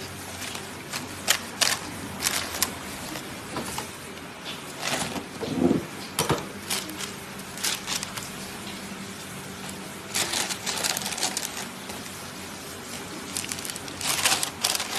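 Hand-handling of a crisp jian bing crepe and a paper bag: scattered sharp crackles and clicks as the crepe is folded on a bamboo mat, then paper rustling in denser spells about ten seconds in and again near the end as the crepe is slipped into the bag.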